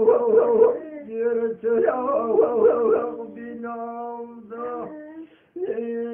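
Kurdish hore (hora) singing: a male voice sings wavering, ornamented melismatic phrases over a steady held drone. Near the end everything cuts out for a moment, then the drone comes back.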